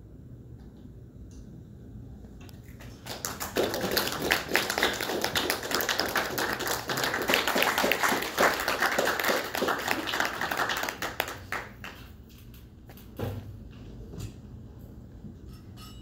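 A dense, irregular clatter of many quick taps and clicks that builds about three seconds in and dies away after about nine seconds.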